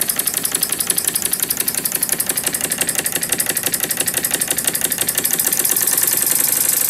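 PM Research model steam engine, a single horizontal cylinder with a brass flywheel, running with a quick even exhaust beat of about seven or eight puffs a second. After about five seconds the beat speeds up and gets louder as the supply pressure is turned up toward 15 psi.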